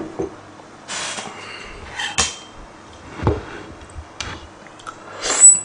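Bowls and chopsticks knocking and clinking on a wooden table as bowls of noodles are moved and handled. It is a string of short, separate knocks and clinks, with the loudest noise near the end.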